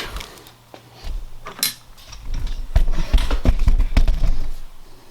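Clicks, knocks and scrapes of hand tools and metal engine parts as a part is worked out of a Porsche 944 cam tower. A run of dull, heavy thumps comes from about two seconds in to four and a half seconds in.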